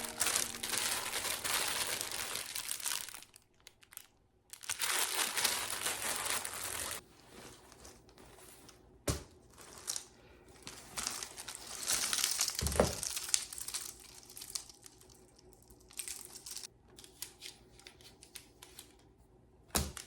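Rustling and crinkling of material being handled, in bursts a few seconds long, with a few sharp knocks in between.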